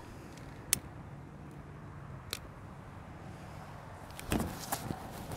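Quiet outdoor background with a faint low hum, two sharp clicks a second and a half apart, and a short flurry of knocks and rustles near the end.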